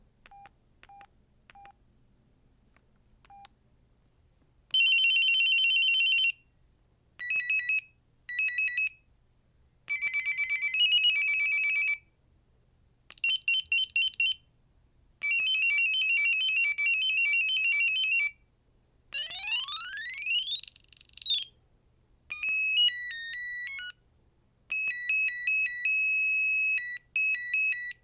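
Samsung SGH-R225 mobile phone playing its built-in ringtones one after another: short electronic beeping melodies, each a few seconds long with brief gaps between them. A few single short beeps come first, and one of the tones is a fast rising sweep.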